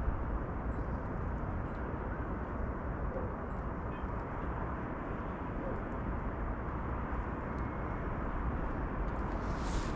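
Steady low rumble of outdoor city ambience, with a few faint ticks and a short hiss about a second before the end.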